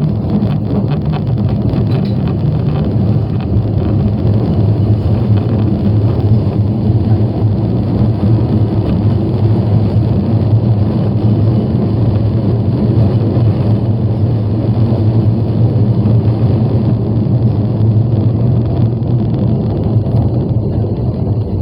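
Osaka Metro 22 series subway train running at speed through a tunnel: a steady rumble from the wheels on the rails and the running gear.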